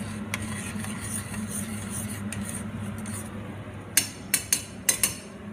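A steady low hum throughout, then about five sharp clinks of utensils against dishes in the last second and a half.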